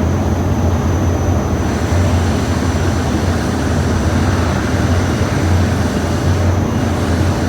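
A steady low mechanical drone, like a running engine or generator, with a faint thin high whine over it.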